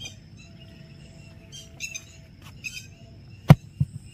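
A dull thump about three and a half seconds in, and a lighter one just after, as a roti on a padded cloth pad is pressed onto the inner wall of a clay tandoor. Birds chirp repeatedly throughout.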